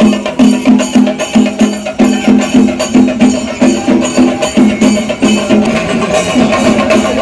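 Percussion music: drums beating a fast, even rhythm of about three strokes a second, with jingling cymbals over it.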